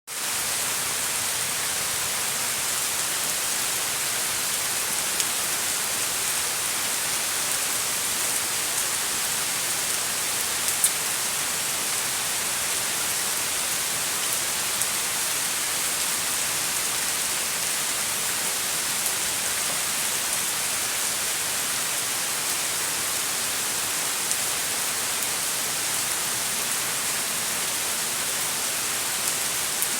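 Steady rain falling, an even hiss with occasional sharper drop ticks, the loudest about eleven seconds in.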